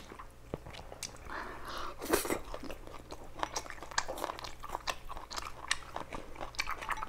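A person chewing a mouthful of braised pork belly and rice close to a clip-on microphone: many small, wet mouth clicks and smacks, with no pause.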